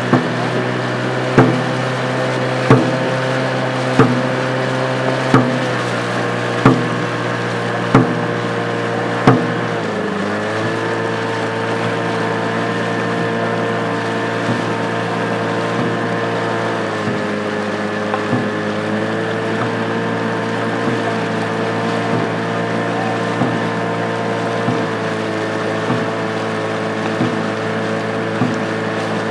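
Motorboat engine running steadily, its hum dropping in pitch about ten seconds in and shifting again a few seconds later. For the first nine seconds a steady beat of sharp knocks, about one every 1.3 seconds, keeps time with a dragon boat crew's paddle strokes.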